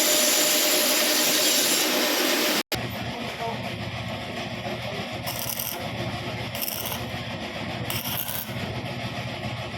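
Loud, steady grinding-type noise of a power tool working metal, cut off abruptly about two and a half seconds in. A quieter steady machine hum follows, with short hissing scrapes every second or so.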